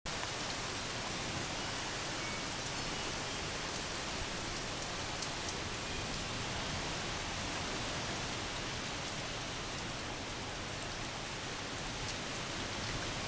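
Steady rain falling on a swimming pool and the patio around it: an even hiss with a few sharp drop ticks now and then.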